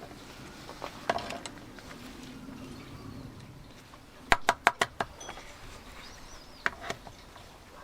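Hammer tapping a pin punch to drive the small retaining pin out of the door lock spindle: a few single metallic clicks, then a quick run of five sharp taps about four seconds in.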